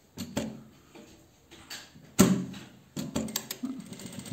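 Industrial straight-stitch sewing machine stitching in two short bursts, about two and three seconds in, with light clicks before them.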